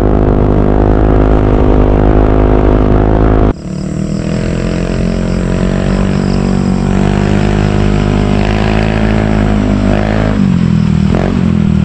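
Yamaha Aerox 155 scooter's single-cylinder engine running through an aftermarket TRC power pipe exhaust. It first holds a steady pitch at cruising speed, heard from on board. After an abrupt cut about three and a half seconds in, it grows gradually louder as the scooter approaches, and the pitch shifts near the end.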